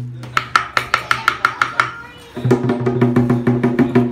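Vietnamese lion dance music: a drum beating fast and evenly, about six strikes a second, over steady low ringing tones. It dips briefly a little past halfway, then comes back in.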